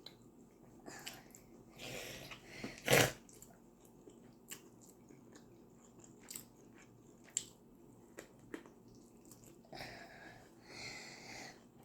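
Close-miked eating sounds of a person biting and chewing a meal of rice and turkey, with scattered small wet clicks. One louder, sharp noise comes about three seconds in.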